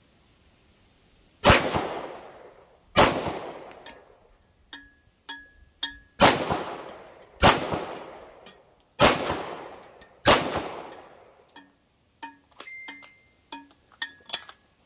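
Six 9mm pistol shots in three pairs, the two shots of each pair a little over a second apart, each shot trailing off in a long echo. Fainter short clicks follow near the end.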